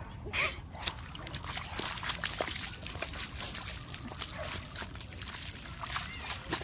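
Wet mud sloshing and squelching in irregular splashes as a dog rolls on its back in a muddy puddle, with a couple of brief whines, one near the start and one near the end.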